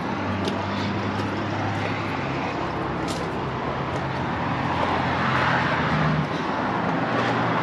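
A fifth wheel's two roof air conditioners running: a steady mechanical hum with fan noise that swells slightly about five seconds in.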